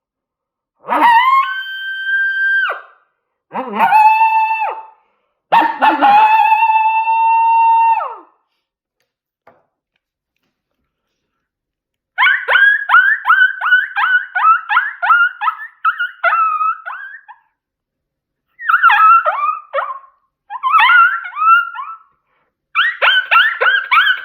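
Yote Punchin coyote howler call blown in three long howls, each held steady and then breaking down in pitch. After a pause comes a quick run of short yips, about three or four a second, and then more bursts of yipping near the end.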